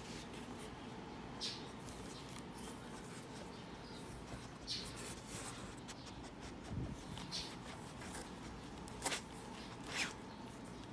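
A beagle nosing at a cardboard puzzle box with square holes cut in its top: faint, scattered scrapes and rustles of cardboard a second or more apart, the sharpest two near the end.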